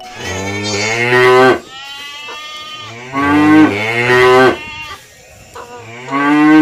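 Cow mooing: three long, loud moos, the last one shorter.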